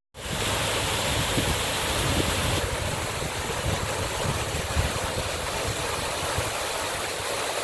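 Steady rushing of water at a canal lock, with wind buffeting the microphone as a low uneven rumble underneath.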